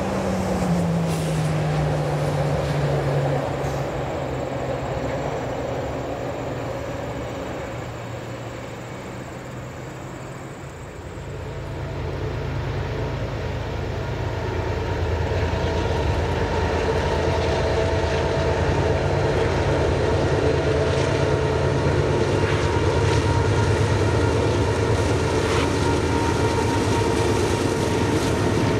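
A freight train rumbling over a steel trestle. A low tone drops in pitch in the first few seconds and the sound fades. Then, from about eleven seconds in, the diesel engines of two GE locomotives, a GE ES44AC and a GE C40-8W, grow steadily louder as they haul a loaded oil tank train closer.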